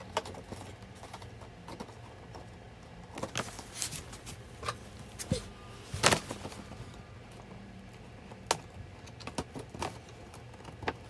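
Cardboard figure box being handled, turned over and set down on a bed, giving scattered light taps, clicks and rustles of card and plastic, with a sharper knock about six seconds in.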